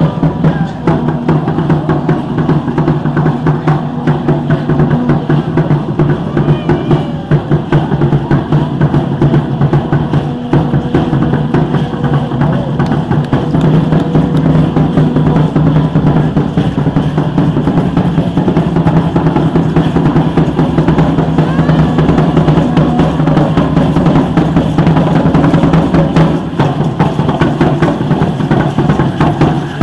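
Loud, fast, steady drumming with a deep drum tone, the beat that accompanies a troupe of Aztec dancers.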